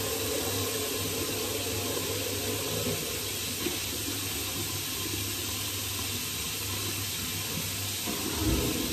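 Water running steadily, an even rushing hiss in a small tiled room.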